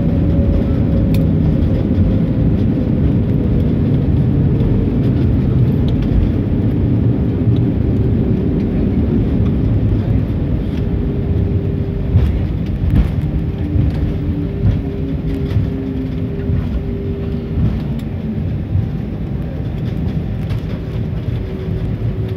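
Inside the cabin of an Airbus A320 on its landing rollout: a steady rumble of wheels and engines, with a hum that slowly falls in pitch and a level that eases as the jet slows. A few light knocks come about halfway through.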